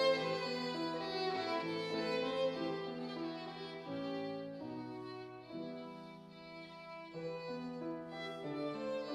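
Violin and grand piano playing together, the violin holding sustained bowed notes over the piano. The music grows softer about five seconds in and swells again about two seconds later.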